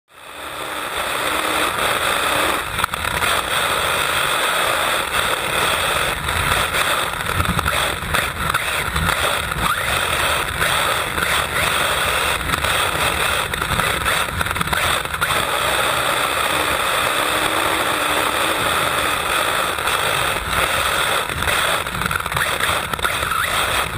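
Onboard sound of an HPI WR8 Flux 1/8-scale brushless electric RC rally car driving: a steady rush of motor, drivetrain and tyre noise with frequent knocks as the chassis hits bumps. It fades in over the first second.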